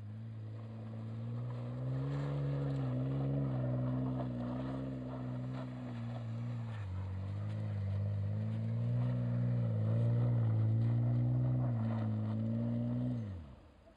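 Mitsubishi Legnum VR-4's twin-turbo V6 revving as the all-wheel-drive wagon slides in circles on snow, its note rising and dipping with the throttle. The revs fall away sharply near the end.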